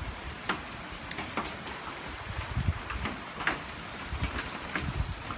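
Heavy rain falling steadily, with single drops tapping close by. Wind gusts bump against the microphone now and then.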